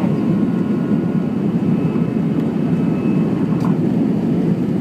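Steady cabin noise inside an Airbus A319 airliner in flight: the jet engines and the rush of air over the fuselage, heard as a loud, even rumble.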